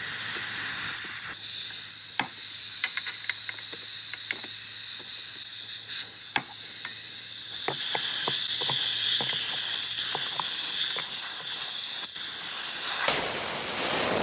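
Compressed air hissing out of a Mercedes W164 AIRMATIC front air strut as its airline fitting is unscrewed with a spanner, the air spring depressurising. The hiss grows louder about eight seconds in and surges near the end as the line comes free, with light metal clicks of the spanner on the fitting.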